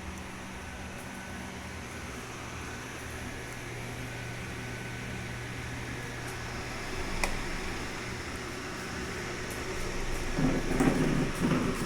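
Mondial Super Turbo VTX 40 cm eight-blade electric fan running, a steady airflow with a low motor hum. There is a single click about seven seconds in, and a louder low rumble starts near the end.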